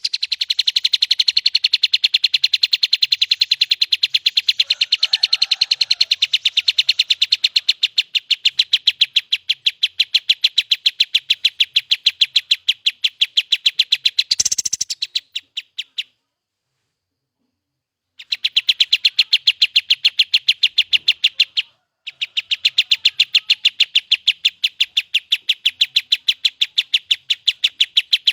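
A kapas tembak songbird singing a long, fast run of sharp, high repeated notes at an even rate. It breaks off for about two seconds midway and briefly again a few seconds later.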